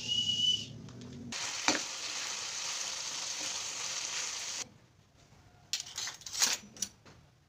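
Short high tone at the start, then food sizzling in a frying pan as it is stirred with a spatula, with a knock about a second into the stirring. Near the end, spoons and cutlery clink as they go into a plastic dish rack's cutlery basket.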